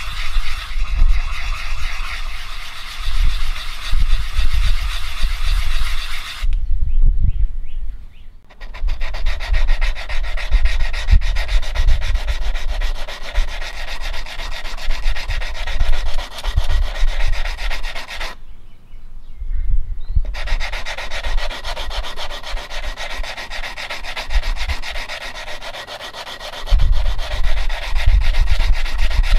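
A small cast ingot of the alchemical silver alloy rubbed back and forth on abrasive paper on a wooden board, a fast scratchy rasping that stops twice for about two seconds, about a quarter of the way in and again just past the middle. A low rumble runs underneath.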